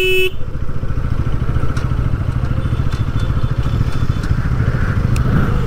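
Bajaj Pulsar NS200 motorcycle engine running steadily while riding. A vehicle horn that was already sounding cuts off a moment in.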